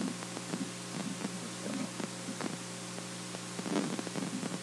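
Steady electrical hum and hiss from the recording's background noise, with a few faint soft clicks and rustles.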